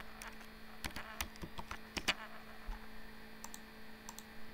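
Computer keyboard typing: a scattered run of irregular keystrokes, over a steady low electrical hum.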